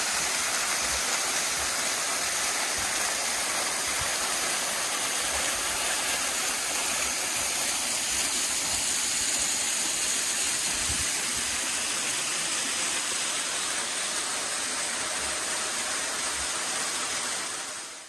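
Small mountain waterfall cascading over rock: a steady rush of falling water, fading out near the end.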